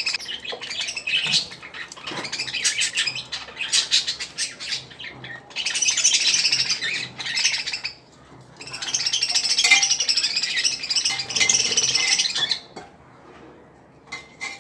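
Budgerigars chattering and squawking in rapid, scratchy, high-pitched calls, in two long loud bouts, falling quiet about two seconds before the end.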